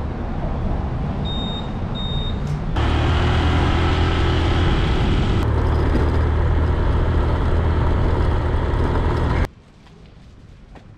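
Motorcycle riding noise: engine rumble with wind rushing past the camera, louder from about three seconds in, with two short high beeps before that. It cuts off sharply near the end, leaving faint outdoor ambience.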